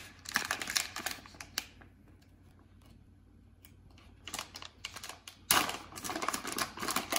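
Plastic seed packet crinkling as it is handled in the hands: a burst of crackling, a quiet pause of a couple of seconds, then crackling again, denser near the end.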